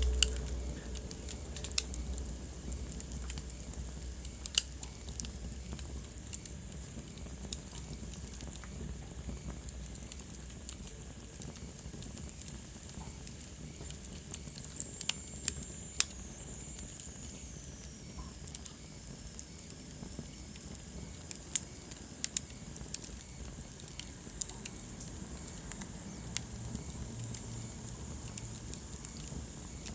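Wood fire in a fireplace crackling, with scattered sharp pops over a soft steady hiss. A low rumble fades out over the first several seconds, and midway a faint high whistle slowly falls in pitch.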